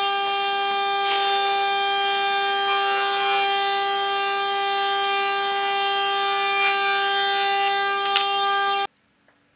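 Electric woodworking power tool running at a constant speed: a steady high-pitched whine with a few light clicks. It stops abruptly near the end.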